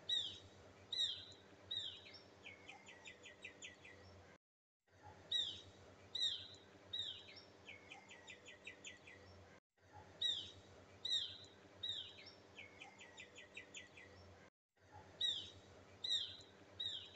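Birdsong: a few downward-slurred whistles followed by a fast rattling trill, the same phrase repeating about every five seconds with brief silent breaks between repeats, over a faint steady hum.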